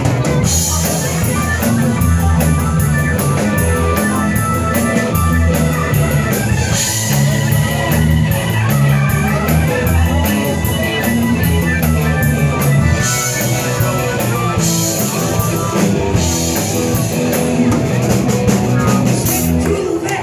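A live rock band playing loudly: electric guitars, bass and drum kit, with cymbal crashes every few seconds.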